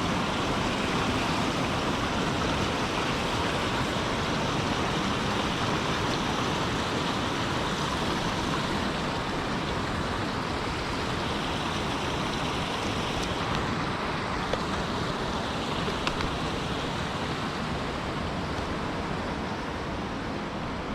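Rushing river water: a steady, even roar of mountain river flow that eases slightly over the stretch, with a couple of faint clicks about two-thirds of the way through.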